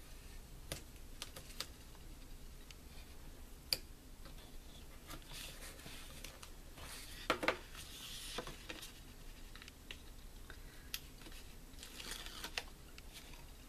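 Quiet handling of cardstock and double-sided tear-and-tape: soft paper rustles and scattered light clicks, with two louder ticks about 4 and 7 seconds in. Near the end the tape's backing strip is being peeled off.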